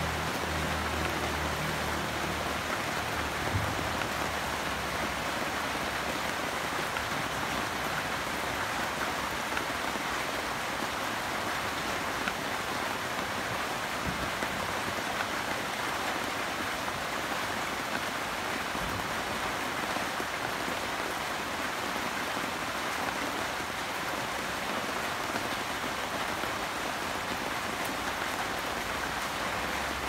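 Steady rain falling on palm and banana leaves, an even hiss that does not let up.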